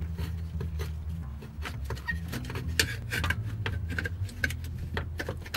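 Metal clinks and taps as a metal bracket is slid and fitted against a car's underbody, with a cluster of sharper knocks around the middle, over a low steady hum.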